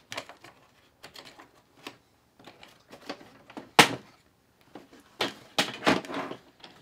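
Plastic toolbox latches unsnapping and the lid being lifted and handled: a string of light clicks and plastic knocks, with one sharp snap about four seconds in and a burst of louder plastic clatter shortly after.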